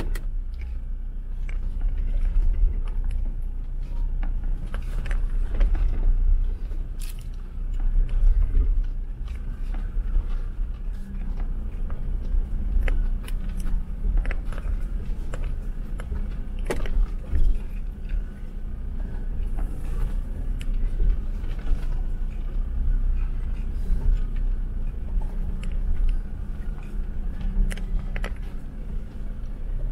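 Jeep Wrangler driving on a snowy off-road track: a steady low engine and tyre rumble, with scattered knocks and rattles from the rough going.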